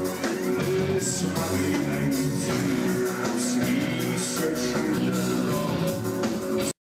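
Rock music with electric guitar, playing steadily and then cutting off abruptly near the end.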